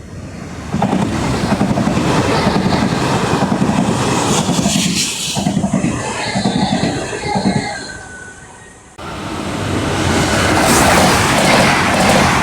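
Train running, a loud rumbling rattle with a falling whine in the middle; the sound dips and then jumps back up abruptly about nine seconds in.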